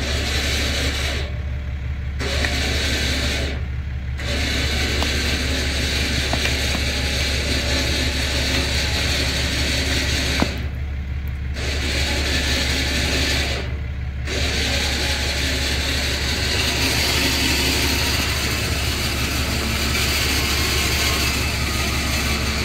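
Warn 16,500 lb electric winch running under load, pulling a stump out of the ground through a snatch block, stopping briefly four times and starting again. A diesel pickup idles steadily underneath.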